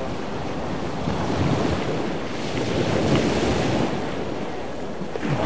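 Wind blowing across the microphone: a rushing noise, heaviest in the low end, that swells and eases.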